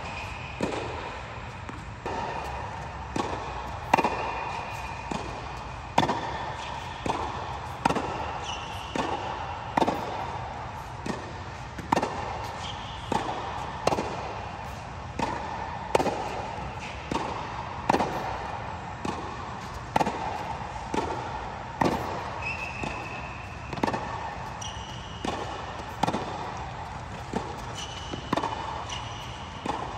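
Tennis ball struck by a racket about every two seconds in a baseline rally, with ball bounces on the hard court in between, each hit echoing inside an air-supported tennis dome. Short shoe squeaks on the court now and then.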